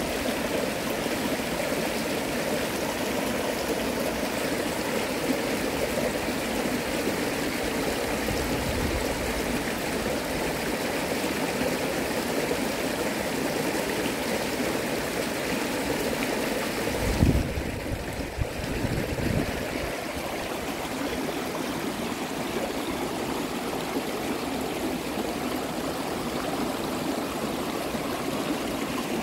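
Shallow creek rapids rushing steadily over rocks. About two-thirds of the way in, a short low thump and rumble lasts a couple of seconds.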